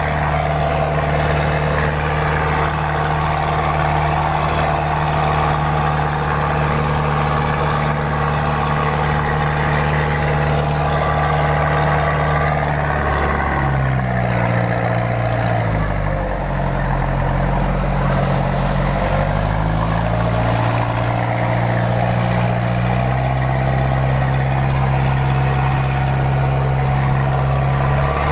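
Mitsubishi 4D31 four-cylinder diesel engine in a boat, running steadily. About halfway through it slows down, then picks back up to its earlier speed.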